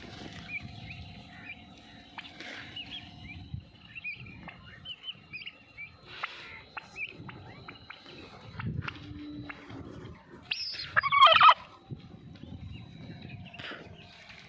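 Turkeys calling: scattered short calls, then one loud gobble about ten and a half seconds in.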